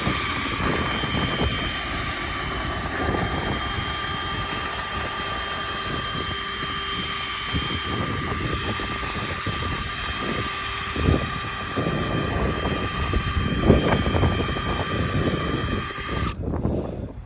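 A motor running steadily with a rush of air and a high whine, cut off suddenly about a second before the end.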